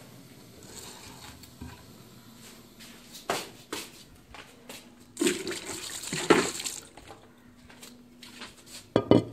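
Water sloshing and splashing in an earthenware bowl as it is rinsed, in a few short bursts and a longer swirl midway, with a couple of sharp knocks near the end.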